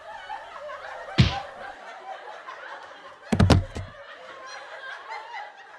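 Quiet laughter and chatter from a small group, with a dull thump about a second in and a quick double knock a little past the middle.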